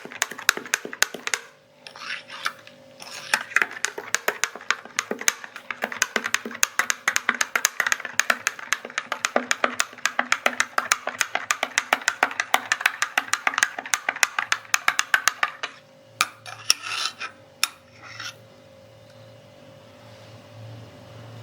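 Spoon stirring milk in a glass, clinking quickly and evenly against the glass for about fifteen seconds. Then come a few separate clinks and knocks, and the clinking stops.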